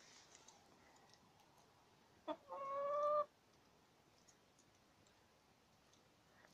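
A domestic hen calls once, about two seconds in: a short clipped note, then a drawn-out call just under a second long that rises slightly in pitch and cuts off suddenly.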